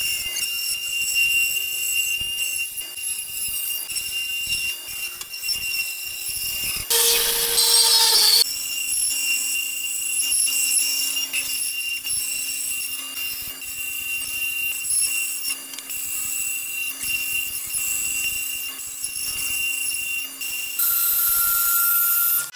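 Power tools working wood: a steady high whine over rough cutting and grinding noise. The sound changes abruptly about seven seconds in, again about a second and a half later, and near the end.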